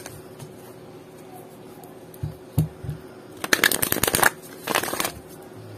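Oracle card deck being shuffled by hand: a few soft low knocks about two seconds in, then two quick bursts of cards flicking against each other, one about three and a half seconds in and a shorter one a second later.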